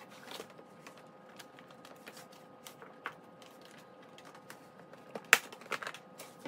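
Scattered clicks and knocks of a plastic golf cart front cowl being handled while LED headlights are pushed into it from behind, with one sharp loud click about five seconds in and a few quicker clicks after it. A faint steady hum runs underneath.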